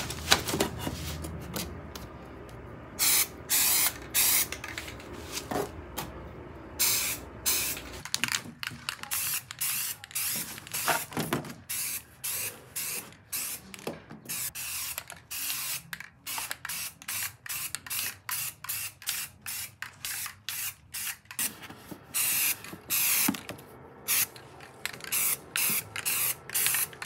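Aerosol can of BIN shellac-based primer spraying in many short hissing bursts of a second or less each. The bursts come shorter and quicker in the second half.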